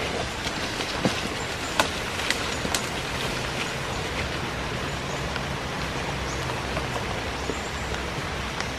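Steady rain falling on oil palm fronds and undergrowth, an even hiss throughout, with a few sharp snaps and clicks in the first few seconds.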